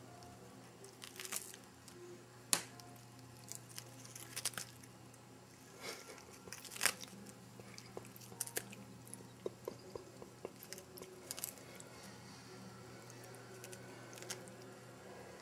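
A cat biting and tearing at a fresh lettuce leaf held out by hand: irregular crisp crunches, snaps and crinkles of the leaf as it chews.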